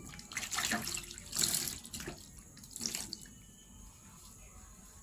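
Water splashing in three short bursts, the loudest a little past a second in, as the face and wet facial sponge are washed.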